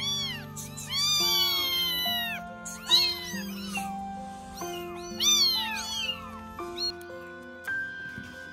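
Baby kittens meowing over and over, short high-pitched cries that rise and fall, over background music. The cries stop about seven seconds in, leaving the music.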